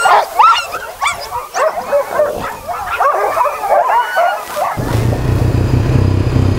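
Many sled dogs yelping, barking and whining together in an excited, overlapping chorus. About four and a half seconds in it cuts abruptly to the steady low running of a Honda ATV engine.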